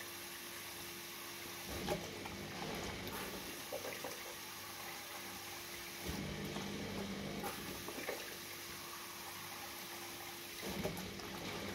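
Neff dishwasher running just after the start of its 35-degree programme: water running and splashing inside the machine with a faint steady hum, swelling briefly a few times.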